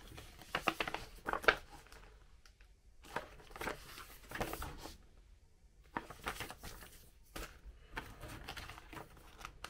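Paper rustling and crackling as a printed manual and leaflets are flipped through and handled, in irregular bursts with short lulls.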